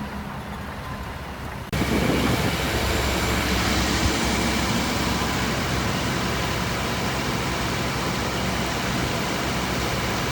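Diesel engine of heavy earthmoving machinery running steadily. About two seconds in the sound jumps louder and fuller, then holds steady.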